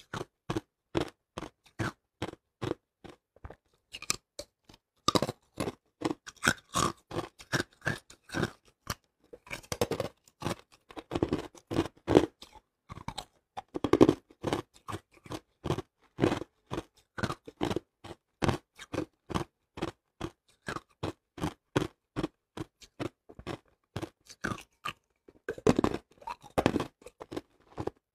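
Hard ice being bitten and chewed close to the microphone: a continuous run of sharp crunches, about three a second, with a few louder bites near the middle and near the end.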